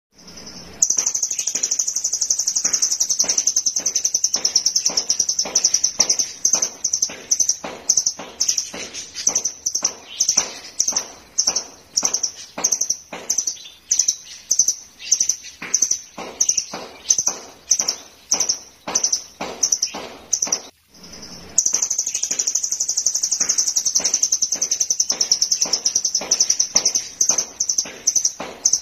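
A caged blue nuthatch (rambatan doraemon) singing steadily: a fast high trill that breaks into evenly spaced high notes about two a second, stops briefly about two-thirds of the way in, then resumes as a fast trill.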